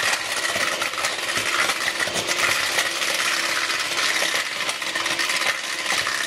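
Electric hand mixer running steadily, its metal beaters clinking against a glass bowl as they beat eggs into a cake batter.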